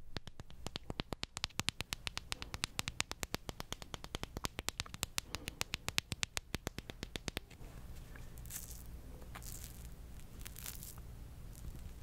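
Close-miked fingernail tapping in a fast, even run of sharp taps, switching about seven seconds in to scratching, a steadier rustle with a few louder strokes.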